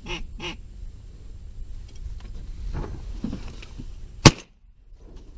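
Two shotguns fired at the same instant, heard as one sharp blast about four seconds in, followed by a brief dropout to near silence.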